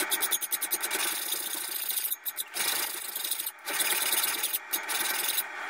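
A hand file rasping in repeated back-and-forth strokes across a metal trigger plate clamped in a vise, shaping it to its final form. The filing stops briefly about two and three and a half seconds in.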